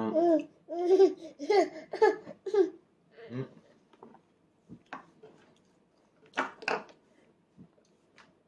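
A toddler's voice babbling and giggling in short, bending syllables for about three seconds, then a few soft clicks and mouth smacks.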